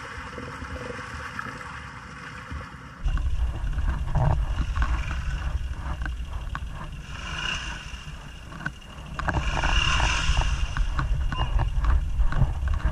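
Honda Foreman ATV running while bogged in deep mud, with mud and water sloshing and splattering around it and wind buffeting the microphone. The sound turns suddenly louder about three seconds in.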